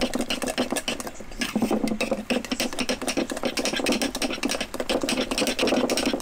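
A spoon scraping and clinking rapidly against the inside of a glass jar as sourdough starter, water and flour are stirred together to work out the lumps.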